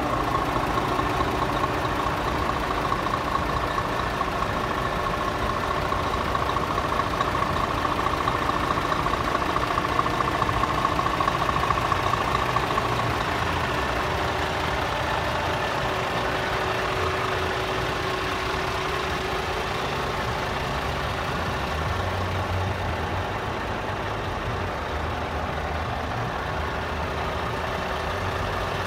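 Scania R440 truck's 12.7-litre inline-six diesel engine idling steadily. A higher hum fades out about halfway through, leaving the lower engine sound.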